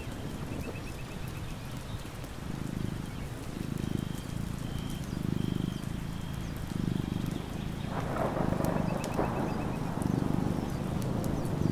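Cat purring in even swells about every second and a half, over steady rain. Short high bird trills come in near the start and again about nine seconds in, with a brief louder rush of rain just before the second trill.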